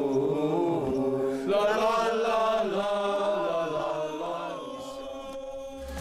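A man's unaccompanied singing in an Indigenous language, a slow chant-like melody with long held notes that slide between pitches. It fades out near the end.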